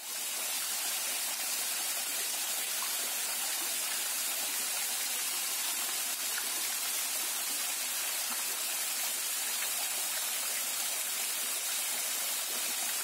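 Steady rush of flowing water in a forest stream.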